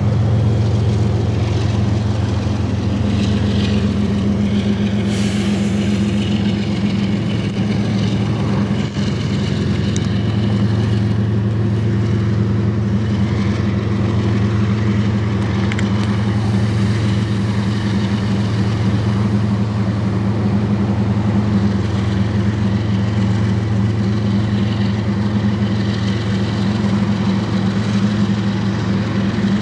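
Diesel locomotive engine running steadily at a constant speed, a loud, unchanging low drone.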